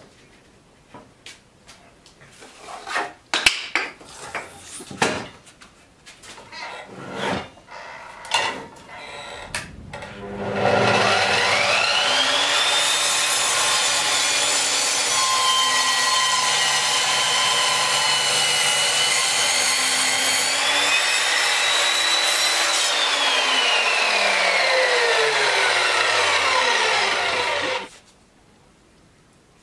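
Parkside 2000 W sliding mitre saw: a few knocks and clicks, then the motor starts with a rising whine and runs at a steady high pitch. The pitch sags slightly for several seconds as the blade cuts through wood. After release it winds down with a falling whine, then stops abruptly.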